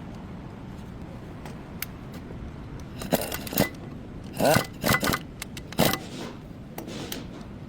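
Metal parts and tools clinking and scraping during work on a brake caliper: a few light ticks, then a cluster of sharp, briefly ringing knocks around the middle.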